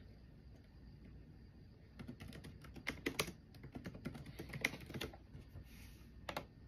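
Faint typing on a computer keyboard: a run of irregular key clicks starting about two seconds in, with one last click near the end.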